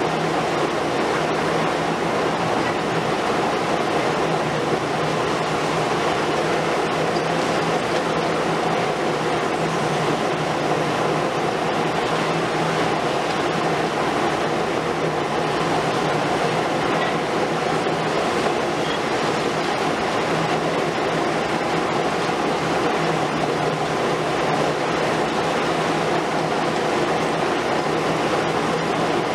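Diesel engines and hydraulics of demolition excavators, including a Liebherr R 950 Demolition long-front (200 kW engine), running steadily under load with a dense mechanical rumble as the high-reach boom breaks down the building.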